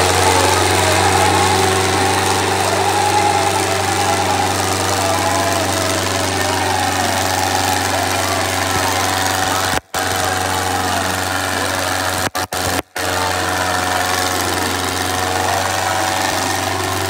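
Diesel tractor engines running at full load, pulling against each other in a tug-of-war, with a steady loud engine drone. The sound drops out for an instant about ten seconds in and several more times around thirteen seconds.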